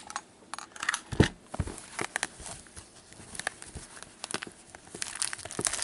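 Hockey trading cards and pack wrappers being handled: scattered light rustles, taps and clicks, the sharpest click about a second in.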